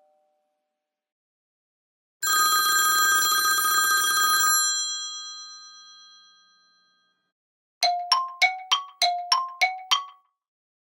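iPhone 'classic' ringtones: a telephone-bell ring lasting about two seconds that fades away, then a quick run of about eight short notes alternating between a lower and a higher pitch.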